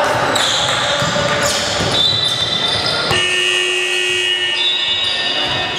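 Indoor basketball game sounds: a ball bouncing and players moving on the hardwood court. About three seconds in, a held signal tone sounds for a second or more as play stops.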